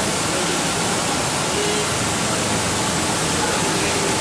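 Steady rushing, hissing noise of car-wash equipment running, even and unbroken throughout.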